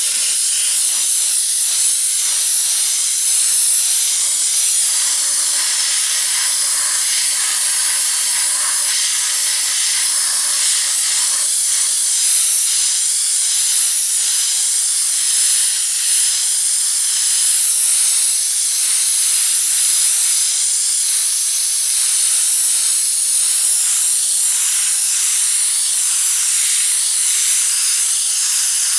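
Pressure pot sandblaster blasting dry sand from its nozzle onto a rusty brake drum: a loud, steady hiss of compressed air and grit.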